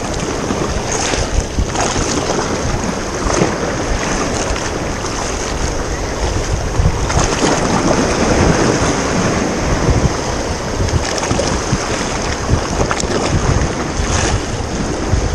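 Wind buffeting the microphone in gusts over the steady wash of sea waves.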